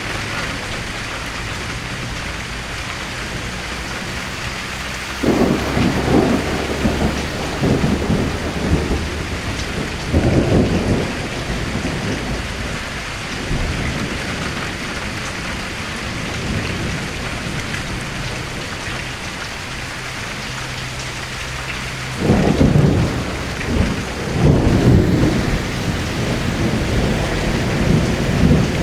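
Steady rain with thunder rumbling over it: a long roll about five seconds in, a shorter one around ten seconds, and another long roll from about twenty-two seconds.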